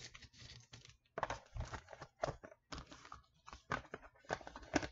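Plastic and cardboard phone packaging rustling and crinkling as it is handled, in irregular rustles with a few sharp clicks, while a smartphone is put away in its box.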